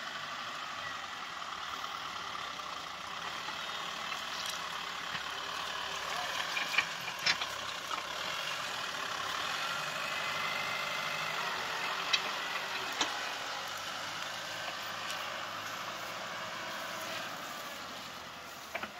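A tractor's diesel engine running steadily under load, with a few sharp knocks about a third and two thirds of the way through.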